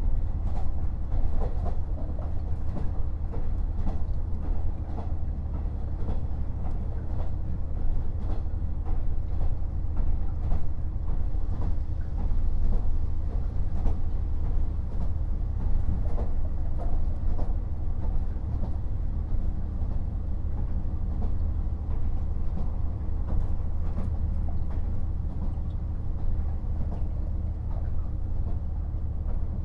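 KiHa 48 500-series diesel railcar running along the line: a steady underfloor diesel engine drone with scattered clicks and knocks of the wheels over rail joints.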